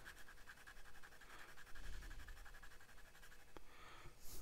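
Faint scratching of a broad steel Schmidt fountain pen nib dragged across paper in wide swipes, a test of how wet the nib writes. There is a light tick near the end.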